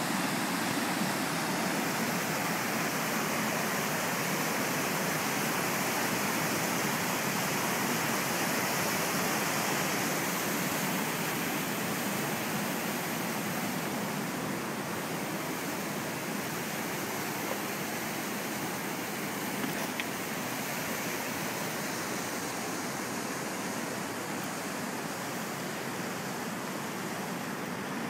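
Rushing river rapids tumbling over boulders: a steady rush of white water that grows slightly quieter about halfway through.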